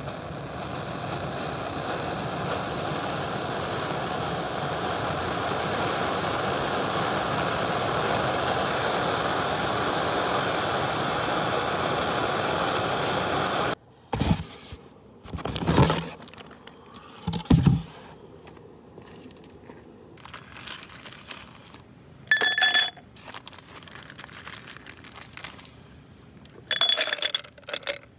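A steady rushing noise that slowly swells, then stops abruptly about fourteen seconds in. After it come a few handling knocks and two short ringing clinks, like metal or glass being struck.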